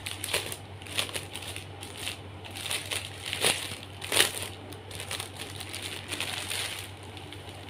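Clear plastic garment bag crinkling and crackling as it is handled and pulled open, in irregular rustles with two sharper crackles about three and a half and four seconds in.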